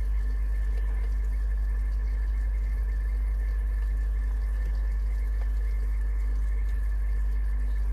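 Steady low machine hum with a faint, steady high whine over it.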